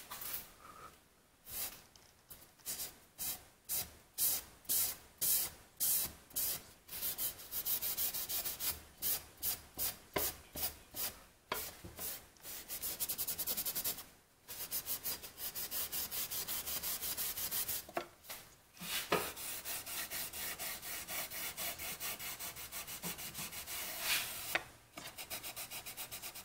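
Hand sanding along the oak edges of a wooden tray with sandpaper, in rhythmic back-and-forth rasping strokes. The strokes come about two a second at first and grow quicker after several seconds, with a couple of short pauses.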